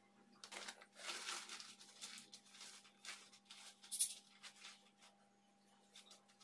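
Faint rustling and crinkling of a shower cap being pulled on over the hair and pressed into place, with a sharper crinkle about four seconds in.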